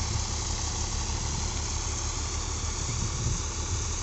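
Tractor engine driving a Kamdhenu thresher at steady working speed: a fast, even low engine pulse under a constant whirring hiss from the machine.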